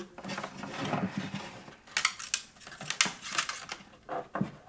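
A guitar string with a pickup cable tied to it, drawn out through the endpin hole of an acoustic guitar: irregular scraping and rubbing against the wooden body, with a few sharp clicks about two and three seconds in.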